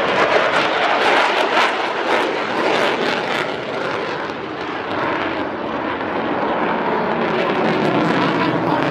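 F-35 Lightning II's jet engine at full power as it climbs steeply away: a loud, rough, crackling jet noise that dips a little about halfway through and builds again near the end.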